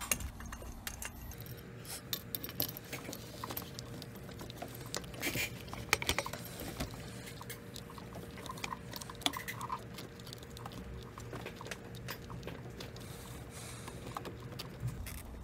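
Scattered light clicks, taps and rattles of hands handling a rubber fuel hose and its metal fittings at an engine's fuel filter housing, with a few sharper knocks about five to six seconds in.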